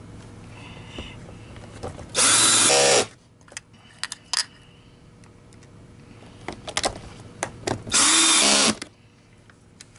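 Cordless drill/driver with a long bit driving screws into a plastic vacuum housing: two short runs of under a second each, one about two seconds in and one near the end, the motor's pitch rising and falling with each run. Light clicks and taps of screws and parts being handled come between the runs.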